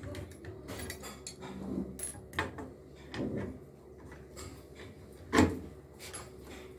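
Scattered clicks and clatter of washing-machine parts being handled and worked loose during disassembly, with one loud knock about five and a half seconds in.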